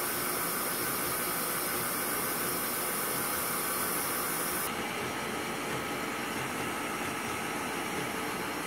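Stand mixer motor running steadily, a constant machine drone. Tap water running into the sink adds a high hiss that drops away about halfway through.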